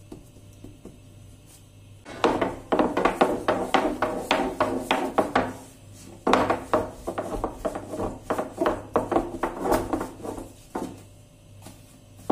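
Long thin wooden rolling pin rolling out floured dough on a wooden board: a rapid wooden clatter with rubbing, in two long runs from about two seconds in, with a short break near the middle.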